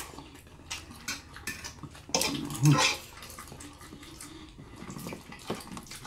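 Close-up mukbang eating sounds: wet chewing and slurping of lo mein noodles, with metal forks clicking and scraping on the food tray. There is a louder stretch a little after two seconds in that ends in a brief low hum.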